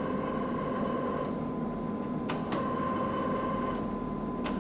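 TOS SUS-80 engine lathe running, with a steady machine whine that fades out about a second in and again near the end, each time resuming after sharp clicks as the rapid traverse is switched in another direction.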